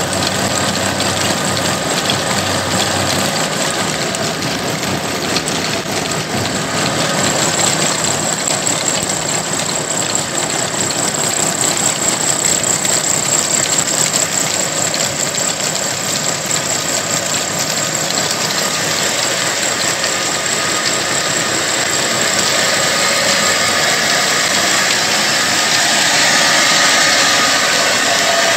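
Old stationary diesel engine running steadily under load, driving belt-driven machinery through flat belts and a line shaft, together with the din of a cotton-opening machine being hand-fed with cotton waste. A thin high whine rises over the clatter for about ten seconds in the middle.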